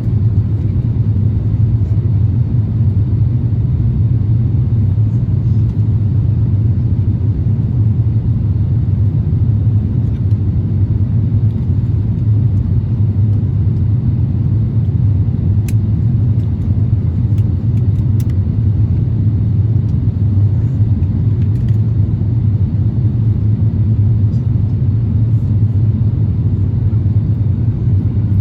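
Steady low rumble of engine and airflow noise inside the cabin of an Airbus A350-1000 in flight, unchanging throughout, with a few faint clicks.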